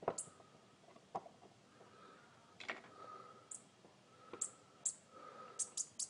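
A kangaroo rat stuck in a wall socket: scattered sharp clicks and scrapes with several brief, very high squeaks, more of them in the second half.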